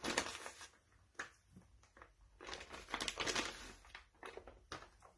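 Foil-wrapped plastic piping bag crinkling in the hands, with scrapes of a stick scooping spackle into it, in irregular clusters of short crackles.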